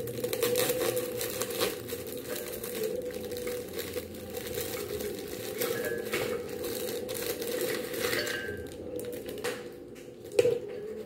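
Plastic biscuit packet crinkling and biscuits clicking against a glass bowl as they are handled, over a steady low hum, with one sharper knock near the end.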